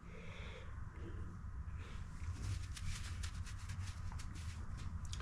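Small electric oil extractor pump running with a steady low hum as it sucks the last of the old oil out of the Briggs & Stratton V-twin's crankcase. Light ticking and scraping from hands at work join in from about two seconds in.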